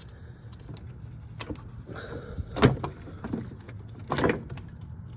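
A few sharp knocks and clunks of parts being handled at a car, the loudest about halfway through, over a low steady hum.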